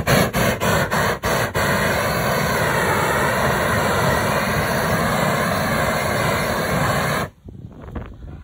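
Propane weed-burner torch burning at full flame, a loud steady rush of burning gas as it singes the fur off an opossum carcass. It comes on in a few short puffs during the first second and a half, then shuts off suddenly near the end.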